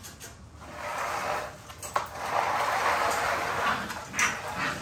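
Rustling and scuffling of puppies moving about in a pen of loose wood-shaving bedding, with a sharp click about two seconds in.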